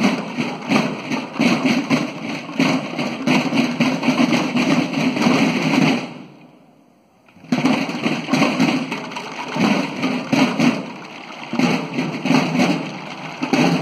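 School drum corps of snare drums and bass drums playing a fast drum cadence. The drumming stops dead for about a second and a half about halfway through, then starts again.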